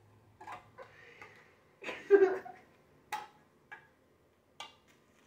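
A brief voice sound about two seconds in, followed by three separate sharp knocks spread over the next two seconds.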